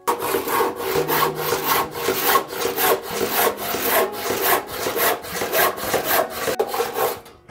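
Hand saw cutting a wooden board in steady back-and-forth strokes, about three a second, stopping near the end.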